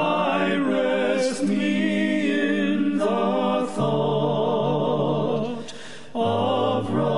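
Congregation singing a hymn a cappella, unaccompanied voices holding long notes, with a brief breath between lines near the end.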